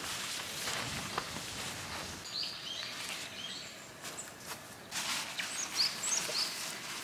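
Small birds chirping in quick short calls, twice: a couple of seconds in and again near the end. Under them, the rustle of a canvas tent being handled and footsteps on grass.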